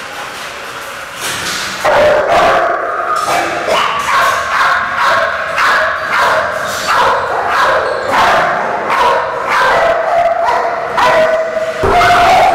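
Several dogs barking and yelping over one another, starting loud about two seconds in and going on in quick repeated calls.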